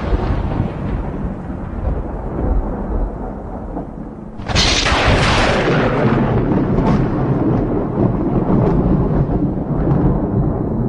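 Thunder: a rumble dying away, then about four and a half seconds in a sudden sharp crack of a lightning strike followed by long rolling rumbling.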